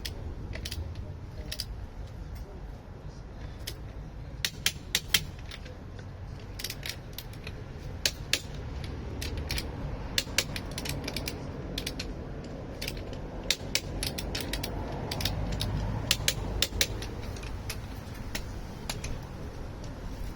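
Click-type torque wrench ratcheting on wheel nuts, with groups of sharp clicks scattered through. The clicks mark each nut reaching its set torque of 110 Nm.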